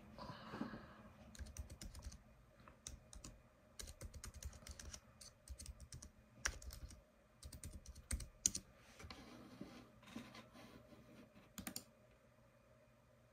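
Typing on a computer keyboard, a run of quick, irregular key clicks that stops near the end.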